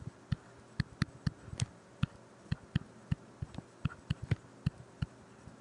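Stylus tapping and clicking on a tablet screen during handwriting: a run of light, irregular taps, several a second.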